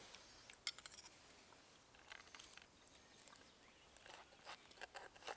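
Knife cutting a fried steak on a wooden cutting board: faint, scattered clicks and scrapes, with one sharper click under a second in.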